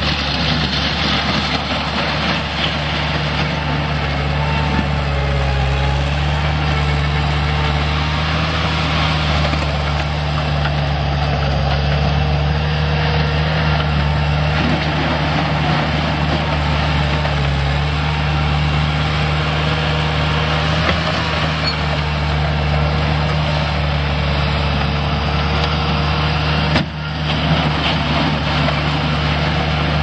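Bobcat 864 track skid steer's 73 hp diesel engine running steadily as the machine drives and works its bucket. The level drops briefly near the end.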